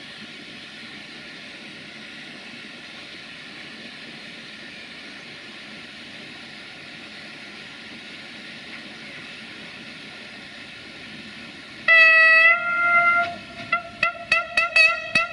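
Horn of a Siemens Desiro VT642 diesel multiple unit. A long blast comes about twelve seconds in, then a string of short rapid toots at about three a second, over a steady rushing background.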